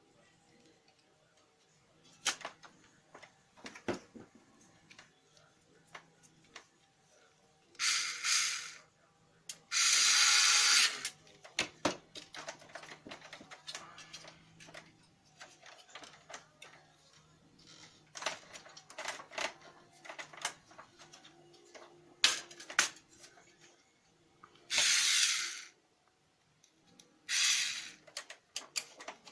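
Small clicks and knocks of parts being handled during work on a laser printer, broken by four short hissing bursts of about a second each, like a spray from a can.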